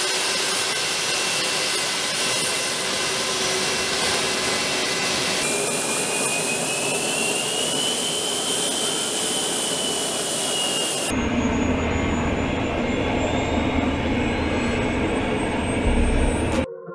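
Embraer KC-390's twin IAE V2500 turbofan engines running on the ground: a steady jet roar and hiss, with a whining tone that rises and then falls about midway. After an abrupt change near eleven seconds, a deeper rumble with a thin high whine.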